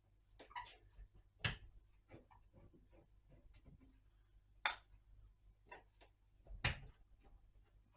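Scattered light metallic clicks and scrapes of a screwdriver working sheet-metal screws out of a Marconi CR100 receiver's steel case, with three sharper clicks spread through.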